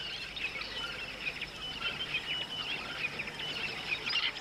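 Small birds chirping: many short, high calls overlapping continuously, as in a savanna bird chorus.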